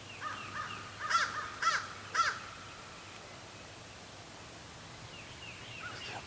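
Crows cawing: three loud harsh caws about half a second apart, about a second in, with fainter, more distant caws before and near the end.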